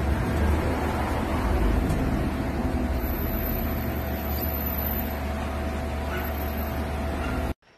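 Steady background din of a shop, with a low rumble and a constant hum, cutting off abruptly near the end.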